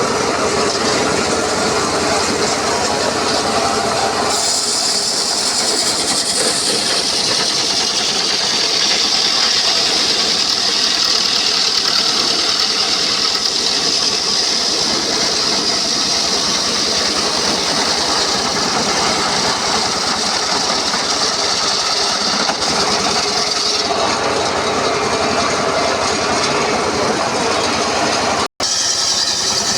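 Sawmill circular saw blade cutting through a teak log: a steady machine run with a high whine from the blade in the wood from about four seconds in until about twenty-four seconds, then the saw running on with a duller sound. The sound cuts out for an instant near the end.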